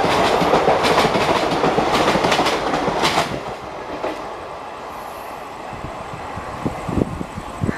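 Passenger train coaches passing at speed, their wheels clattering over the rail joints in a run of sharp clicks. About three seconds in the last coach goes by and the noise drops away sharply as the train recedes, with two short thumps near the end.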